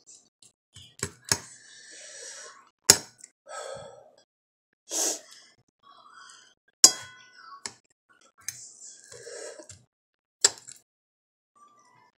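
A metal fork clinking against a dinner plate while picking up bites of food: about five sharp, separate clinks spread out, the one about seven seconds in ringing briefly.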